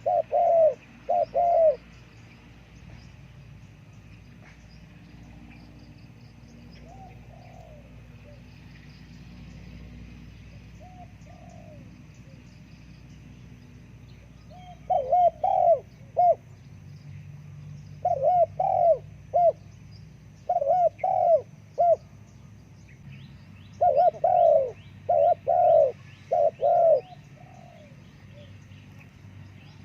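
Spotted dove cooing: repeated phrases of several short, loud coos, with a long pause of fainter calls before the phrases come quickly again. Small birds chirp faintly and high in the background, more busily in the second half.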